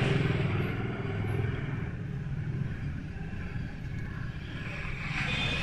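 A motor vehicle engine running, a steady low rumble that dips in the middle and swells again near the end.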